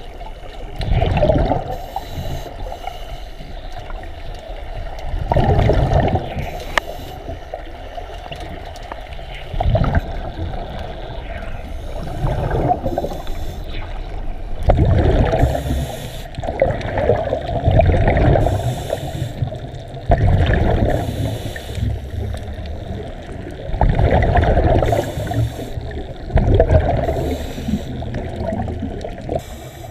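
Scuba regulator breathing recorded underwater: exhaled air bubbling out of the second stage in surges every few seconds, with the hiss of each inhalation between them.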